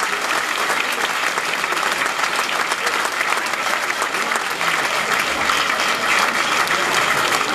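A roomful of people applauding, a dense, steady clatter of many hands clapping that keeps up the whole time.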